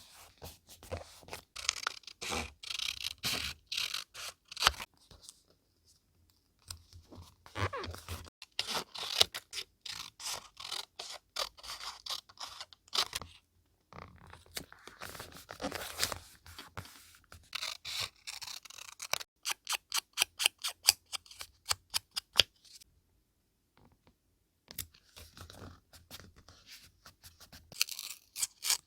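Paper-crafting sounds from vintage journaling: paper being handled, scraped and crinkled, with many sharp snips and clicks. About two-thirds of the way through comes an even run of quick clicks, several a second, and there are short pauses in between.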